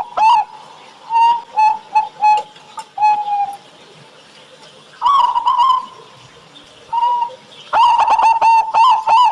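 Zebra doves (local perkutut) cooing: scattered single coos and short groups of notes, then, near the end, a fast run of repeated coos at about three a second.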